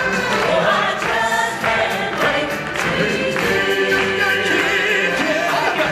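Choir singing over music with a steady percussion beat.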